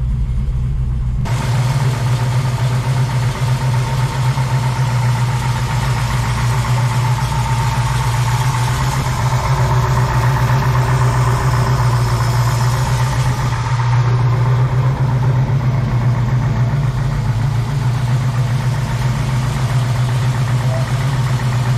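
Mopar 440 big-block V8 running steadily, its newly fitted camshaft having just been run in.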